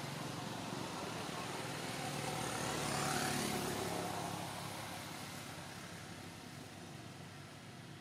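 A motor vehicle passing by: the sound grows to its loudest about three seconds in, then fades, its pitch dropping as it goes past.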